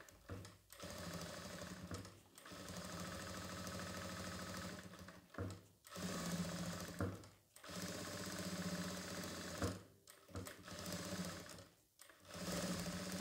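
Jack F4 single-needle lockstitch industrial sewing machine stitching in about six short runs, stopping briefly between them. The stops come as the operator brings the needle down exactly on each mark on the fabric, the practice that shows control of the machine's speed.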